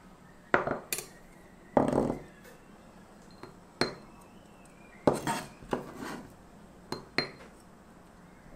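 Chef's knife knocking and scraping on a plastic cutting board and tapping against a small bowl as chopped scallions are pushed into it: a string of irregular clicks and knocks, with a quick cluster a little after the middle.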